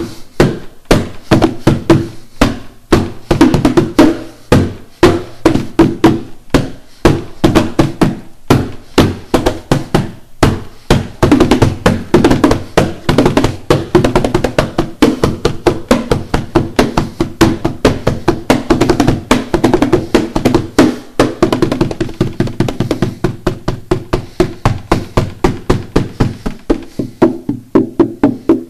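Hand percussion on the wooden body of an acoustic guitar and a cardboard box: a fast, steady rhythm of knocks and slaps, each ringing briefly in the hollow guitar body.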